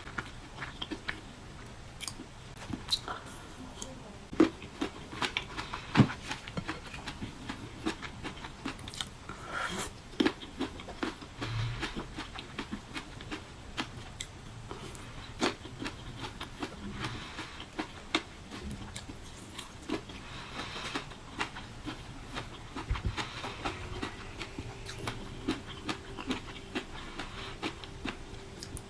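Close-up eating sounds of a person biting and chewing juicy fruit: many wet mouth clicks and smacks, irregularly spaced. A faint steady hum comes in near the end.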